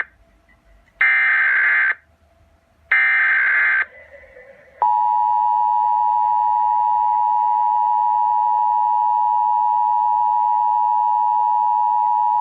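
Emergency Alert System SAME header: the end of one screeching digital data burst, then two more bursts about a second long each, a second apart, marking the start of an alert. About five seconds in, a steady, loud EAS attention tone begins and holds.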